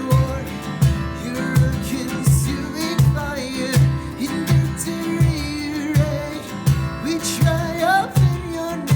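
Acoustic guitar strummed in a steady rhythm, with a voice singing a melody over it: a worship song.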